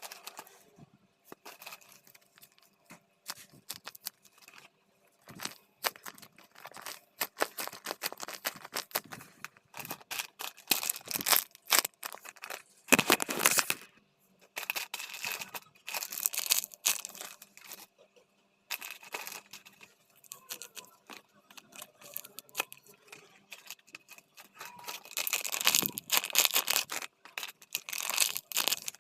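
Crinkling and rustling of plastic as squishy toys are handled, in irregular crackly bursts, loudest about twelve seconds in and again near the end.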